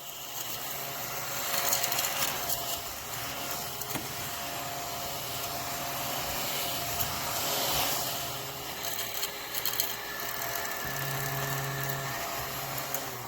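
A battery-powered mini desktop vacuum cleaner running with a steady small-motor whir. The whir builds up over the first second or two.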